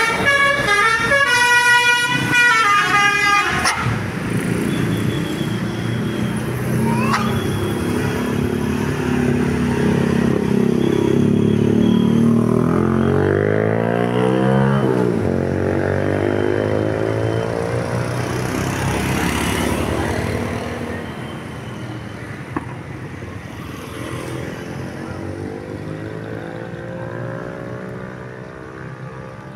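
Basuri V3 telolet horn, a multi-tone musical bus horn, playing a quick tune of changing notes for the first few seconds. Then a vehicle engine runs; its pitch climbs and drops sharply about halfway through, and it grows quieter toward the end.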